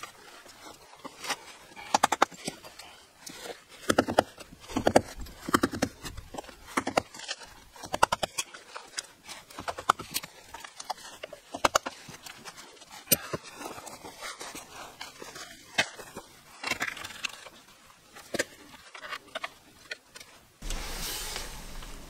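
Wooden mallet striking a steel chisel to chip concrete out of a door threshold: irregular sharp knocks, with loose concrete chips scraping between the blows. Near the end the knocking stops and a steady low rushing noise takes over.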